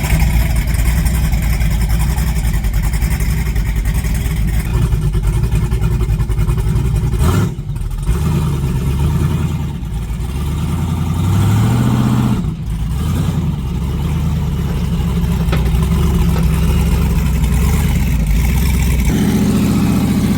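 Off-road 4x4 truck engines running and revving as they crawl a trail, the pitch rising and falling with the throttle. The sound changes abruptly twice, about a third of the way in and again past halfway, as one shot of engine noise gives way to another.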